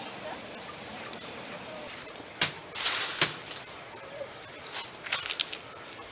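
Dry leaves crackling and rustling as they are stoked with a stick into a leaf-fired clay furnace: scattered sharp crackles, with a louder rush of rustling noise about halfway through.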